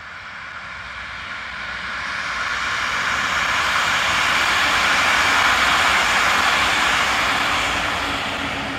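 Diesel push-pull regional train with a class 223 diesel locomotive running through the station: engine and wheels on rail grow louder to a peak about halfway, then fade as it moves on.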